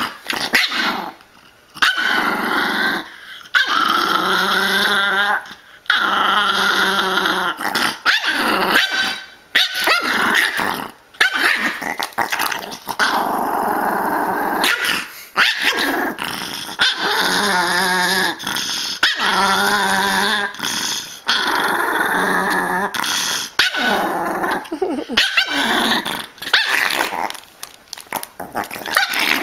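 A Pomeranian growling and yapping over and over: long growls of a few seconds each, broken by short sharp yaps.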